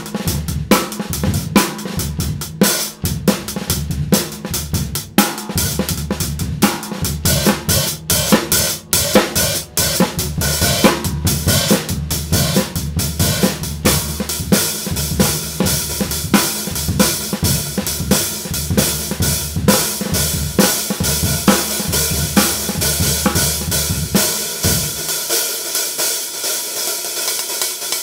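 Drum kit groove of bass drum, snare and hi-hats, the hi-hat top being a handmade 13-inch paper-thin B8 bronze cymbal. About 24 seconds in the drums drop out and the hi-hats go on alone.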